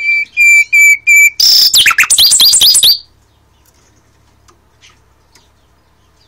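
Caged nightingale singing close up: a string of repeated piping whistles, about three a second and growing louder, breaks into a loud, rapid run of sweeping notes and rattling clicks that stops about three seconds in.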